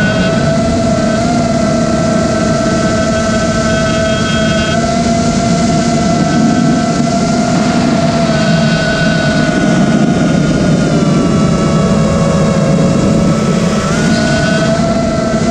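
Brushless motors and propellers of an Eachine Wizard X220 racing quadcopter in flight, picked up by the camera on board: a steady electric whine that drifts slightly in pitch with the throttle, over a rush of prop wash and wind.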